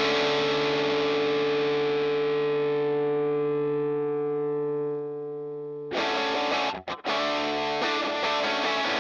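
Overdriven electric guitar played through an amp simulator (Z Wreck amp model with a tube-screamer-style overdrive pedal). A chord is left to ring and slowly fade, is cut off about six seconds in, then new chords are strummed.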